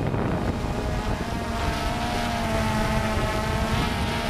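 Steady whine of a camera drone's propellers, with wind noise.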